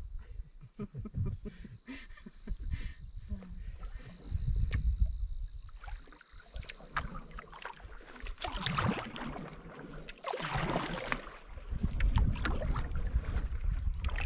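Canoe paddle strokes with splashing and dripping water, over a steady high insect trill. Low rumbles of wind on the microphone come and go.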